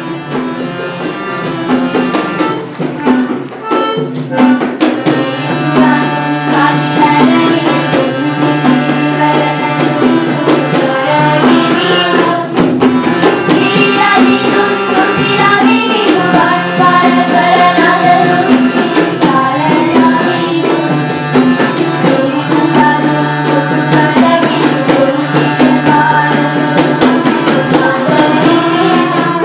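Loud music with a hand-drum rhythm and a melody over a steady low drone.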